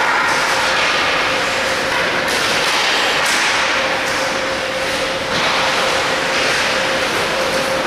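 Indoor ice rink ambience during hockey play: a steady, loud rushing noise with a constant hum underneath, broken by a couple of sharper scrapes or clacks from skates and sticks on the ice about two and three seconds in.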